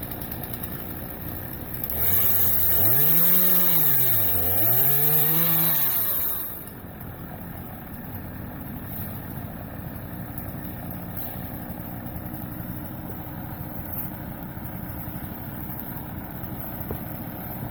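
Two-stroke chainsaw revved up twice in a row, its pitch climbing and falling each time with a hiss of cutting. It then drops back to a quieter steady running sound.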